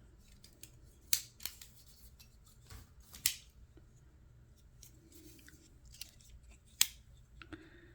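Sharp metal clicks from a Leatherman multi-tool being handled as its implements are swung open: a couple about a second in, one around three seconds in, and the loudest near the end, with quiet handling between.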